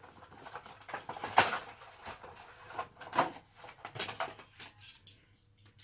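A toy car's blister pack and cardboard backing being handled and torn open, with a few sharp plastic crackles and clicks, the loudest about a second and a half in.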